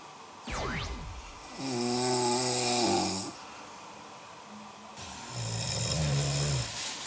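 Men snoring in their sleep: two long snores, one about two seconds in and a lower one near six seconds, each lasting over a second. A quick whistle-like tone sweeps down in pitch about half a second in.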